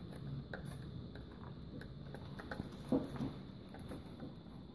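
Wooden stirring stick clicking and tapping against the inside of a small test tube while vinegar and dish soap are mixed: light, irregular ticks. A brief low sound about three seconds in.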